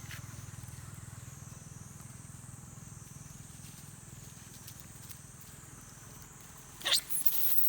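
Low, steady hum of an idling vehicle engine, slowly fading, with a faint wavering high whine over it. About seven seconds in comes a sudden loud noisy burst.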